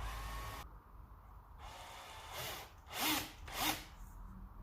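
Power drill boring pilot holes into a wooden speaker board. The motor runs briefly at the start, then comes two short, loud bursts as the bit cuts into the wood.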